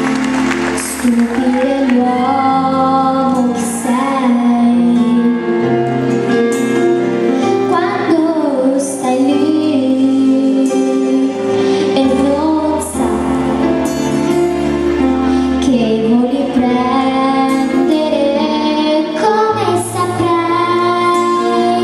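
A young girl singing an Italian pop ballad live into a handheld microphone, backed by a live band with bass and cymbals.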